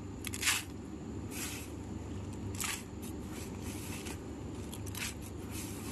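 Handfuls of dry chicken-feed pellets poured from a plastic bag into a plastic bait tray, giving several short rustles over a steady low background noise.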